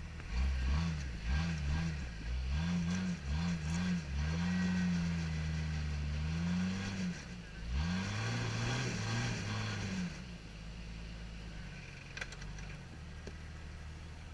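Jeep Cherokee XJ engine revving in a string of short blips, then held at higher revs for a few seconds, dipping and revving again, as the lifted Jeep tries to climb a snowy rock ledge. About ten seconds in it drops back to a steady idle.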